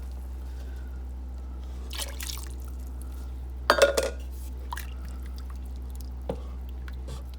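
Chicken broth being poured into a pan of sausage, sautéed vegetables and melted butter, dripping and splashing, with a loud clink of a cup or utensil against the pan about four seconds in.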